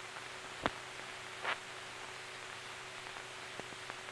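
Steady hiss of an old film soundtrack, with a faint low hum and a few soft clicks and pops.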